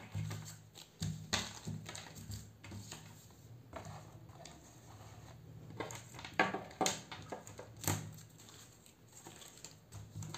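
Hands handling paper leaflets, sticker cards and plastic packaging from an unboxed lavalier microphone kit: irregular rustling, crinkling and light knocks, the loudest cluster a little past the middle. A faint low hum runs underneath.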